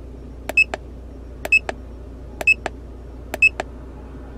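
ROMONDES RD3000 OBD-II scan tool's keypad pressed four times, about once a second, to scroll down a menu list: each press gives a click, a short high beep and a second click.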